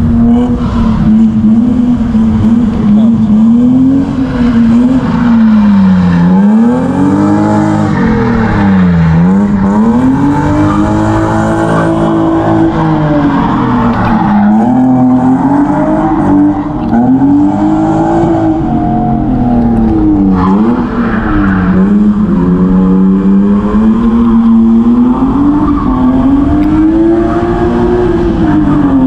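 BMW drift car's engine revving hard, its pitch climbing and dropping again and again as the throttle is worked through a street drift, with tyre squeal from the sliding rear tyres.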